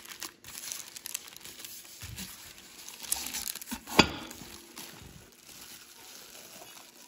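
Plastic packaging crinkling and rustling as it is handled and pulled off, with one sharp knock about four seconds in.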